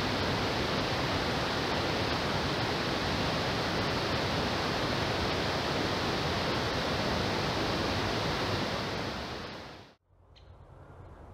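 Steady rush of a waterfall or fast stream. It fades out near the end and cuts off abruptly into a much quieter outdoor background.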